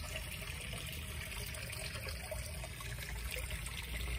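Steady trickle of running water, with a low rumble beneath it.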